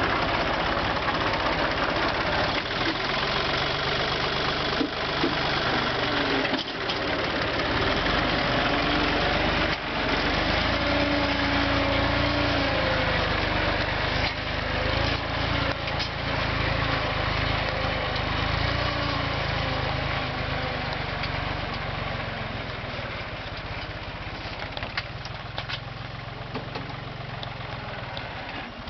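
Yanmar FX22D compact tractor's diesel engine running steadily while ploughing. Its pitch wavers slightly in the middle, and it is a little quieter near the end.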